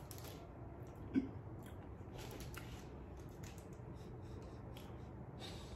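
Faint chewing and small handling clicks and rustles as a powdery Philippine shortbread cookie is eaten, with one brief louder sound about a second in.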